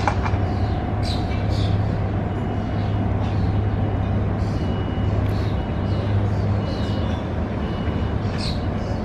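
City ambience: a steady low traffic rumble, with short high chirps scattered over it.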